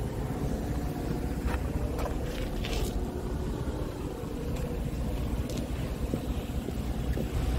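Scania R410 tractor unit's 13-litre straight-six diesel idling with a steady low rumble.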